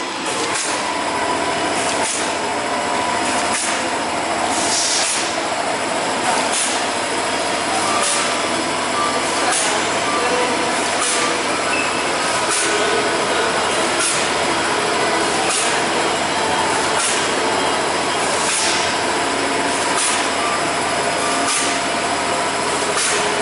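Plastic bag-making machine running steadily: a constant mechanical hum with a short, high stroke repeating about every three quarters of a second as the machine cycles.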